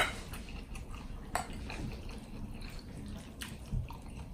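Wet mouth sounds of chewing shrimp Alfredo pasta, with a metal fork clicking against the plate a few times as it works the spaghetti.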